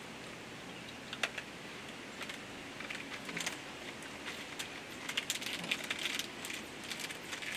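Light crinkling and ticking of a Kit Kat's plastic wrapper and foil being handled: a single click about a second in, then denser crinkles from about five seconds in, over a faint steady hiss.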